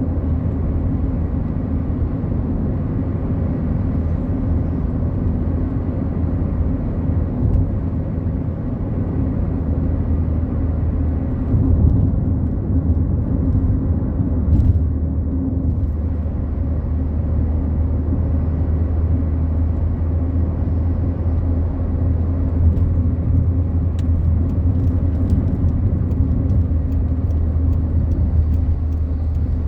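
Fiat Palio Fire cruising steadily on a highway, heard from inside the cabin: a steady low drone of engine and tyres on the road surface.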